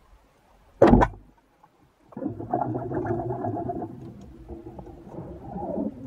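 Wooden band speargun firing underwater: one loud sharp crack about a second in as the shaft is released at a sea bass. About a second later a rough rumbling noise starts and runs for about four seconds.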